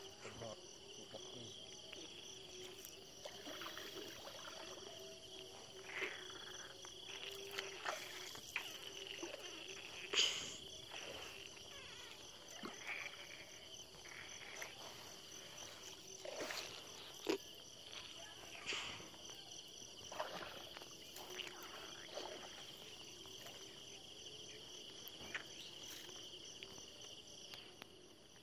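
Fishing net being hauled by hand over the side of a wooden boat: faint scattered water drips, splashes and small knocks, the clearest about 10 and 17 seconds in, over a steady high-pitched insect chirring.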